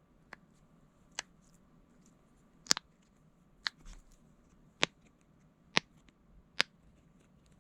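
About seven short, sharp plastic clicks, roughly one a second at an uneven pace, from handling the mini pop-it fidget toys and their keychain pieces.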